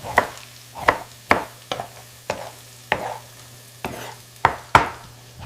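A series of sharp taps or knocks, about nine at uneven spacing, over a steady low hum.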